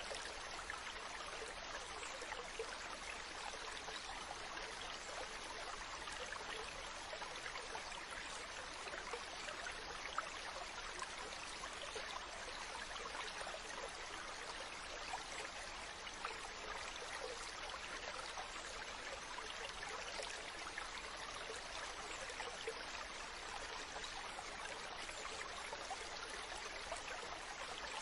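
Running water, a steady even rush with small splashes and drips standing out now and then.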